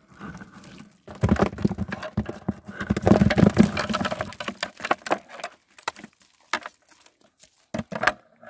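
A catch of small roach being shaken out of a wire-mesh fish trap into a plastic bucket: a rapid patter of fish tumbling and flopping onto the bucket and each other, with the trap's wire rattling. It is dense for about four seconds from a second in, then thins to a few scattered taps.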